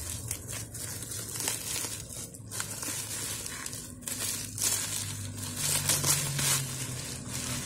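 Bubble wrap and plastic film crinkling and crackling steadily as they are handled and unwrapped, over a faint low steady hum.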